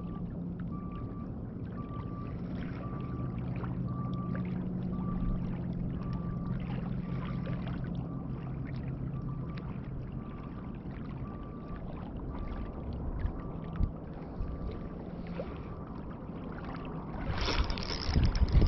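A motor drones steadily, with a short high beep repeating about twice a second. The drone fades out a few seconds before the end. Near the end there is a louder burst of rustling and knocks.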